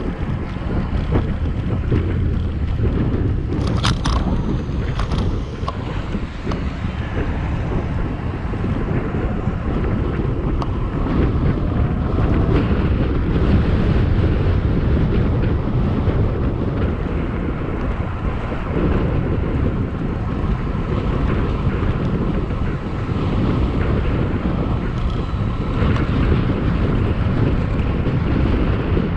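Wind buffeting the microphone of a camera worn by a rider on an electric BMX bike, over a steady low rumble of riding noise. There is a sharp click about four seconds in.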